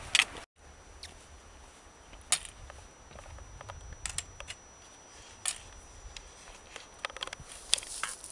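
Footsteps and trekking-pole tips on granite boulders: irregular sharp clicks and scrapes during a scramble up a rocky slope. A brief dropout comes about half a second in.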